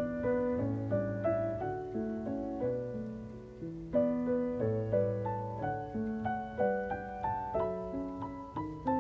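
Background piano music: a gentle melody of struck notes over low held notes, each note fading before the next.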